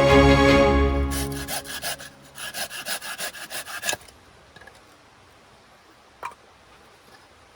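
Background music fading out, then a quick run of short rasping strokes, about six in under two seconds, like wood being rubbed or sawn. The strokes stop suddenly and a single faint click follows.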